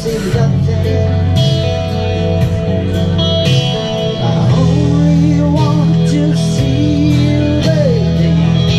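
Live music: a male singer with amplified guitar at a microphone. Held notes ring through the first half, and the singing comes in from about halfway in over a steady bass.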